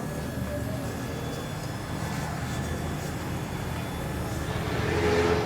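Toyota Corolla XLi's engine running steadily with a low hum, swelling louder for a moment near the end.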